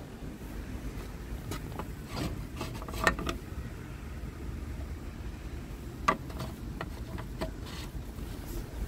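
Short plastic clicks and knocks from the cap of a truck's coolant expansion tank being unscrewed and handled, in two clusters, early and again past the middle. Under them runs a steady low rumble, with wind on the microphone.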